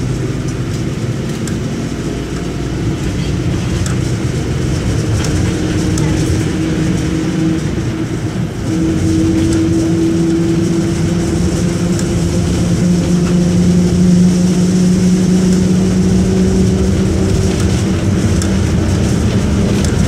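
Mercedes-Benz OM-924 LA four-cylinder inline turbodiesel of an OF-1722M bus running under way. Its note rises slowly in pitch and gets louder about nine seconds in.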